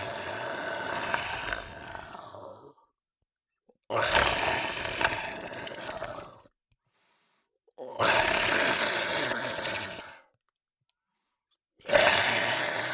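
Monster growl sound effects: four separate rough, noisy growls, each starting sharply and fading out over two to three seconds, with about a second of silence between them.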